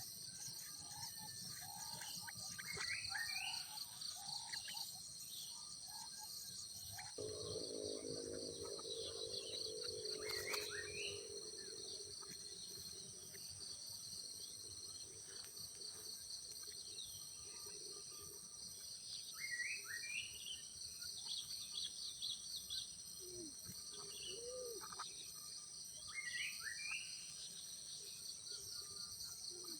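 Steady high-pitched drone of crickets and other insects, with short bird chirps and sweeping calls every few seconds. A low hum of several tones comes in about seven seconds in and fades out a few seconds later.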